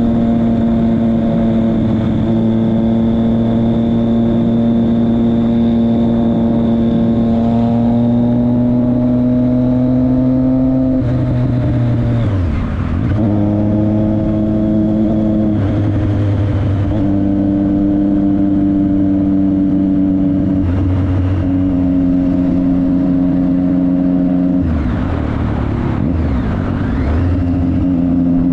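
Motorcycle engine running under way, heard from the rider's seat. Its note holds steady at first, drops about twelve seconds in, then shifts up and down in steps several times.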